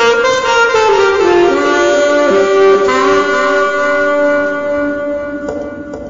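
Saxophone played solo: long held notes that step down in pitch in the first second or so, then sustain, growing quieter and breaking off near the end.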